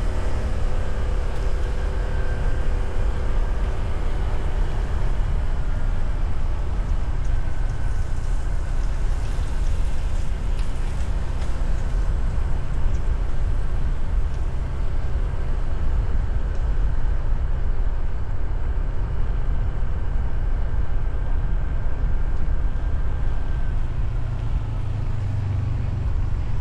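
Motorcycle on the move: the engine runs steadily under a heavy rumble of wind on the microphone.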